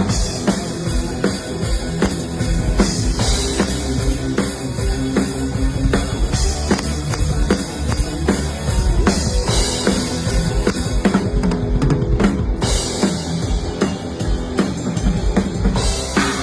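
Rock band playing live at a sound check, with a drum kit the most prominent: a steady beat of bass drum and snare hits over sustained bass notes.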